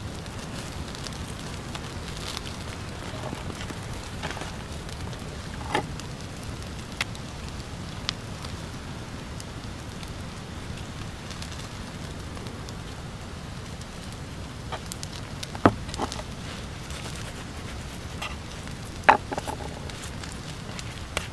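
Wood cooking fire crackling steadily, with scattered sharp pops, a few of them loud.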